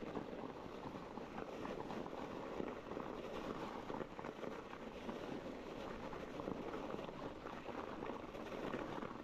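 Mountain bike tyres rolling and sliding over snow on a descent: a steady, grainy rushing noise, with wind on the microphone.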